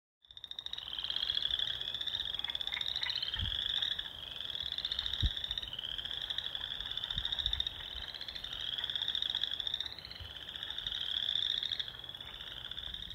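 A chorus of frogs calling: overlapping rising trills, high-pitched, following one another about every second and a half. Two soft low thumps a few seconds in.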